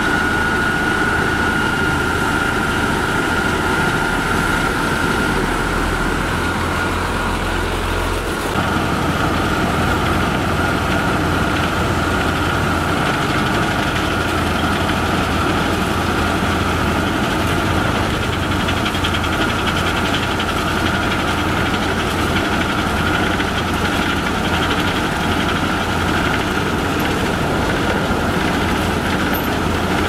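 Heavy road-paving machinery running steadily: a diesel engine drone with a steady high whine over it. The sound shifts briefly about eight seconds in, then carries on as before.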